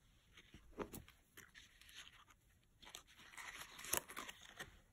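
Faint handling of cardstock pieces and a brass paper fastener: scattered small clicks and soft paper rustling, a little louder about three to four seconds in.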